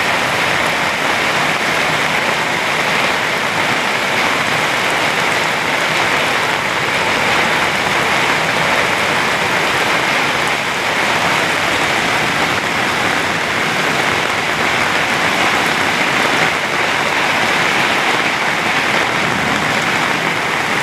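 Heavy rain falling in a steady downpour, an even, unbroken hiss.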